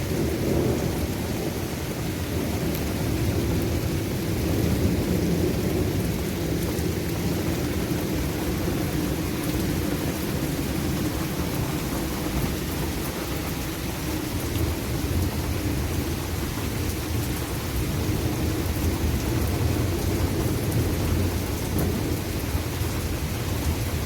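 Severe thunderstorm overhead making a continuous low roar, with light rain falling. It is a steady rumbling with no distinct thunderclaps. The wind is calm at ground level, and the uploader suspects the roar comes from something happening high up in the storm.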